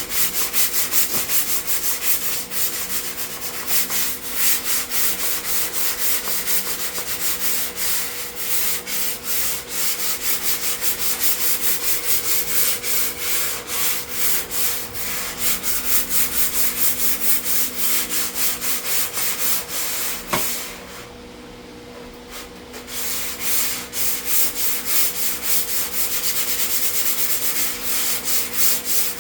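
Hand sanding of cured body filler on a car body panel: quick, rhythmic back-and-forth rasping strokes, pausing for a couple of seconds about two-thirds of the way through. A steady low hum runs underneath.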